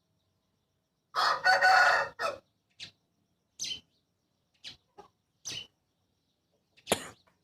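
Aseel rooster crowing once, a short call starting about a second in, followed by several brief separate calls and a sharp sound near the end.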